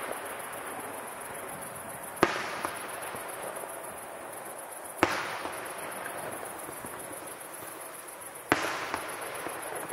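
Aerial fireworks shells bursting: three sharp bangs roughly three seconds apart, each trailing off into a long, slowly fading echo.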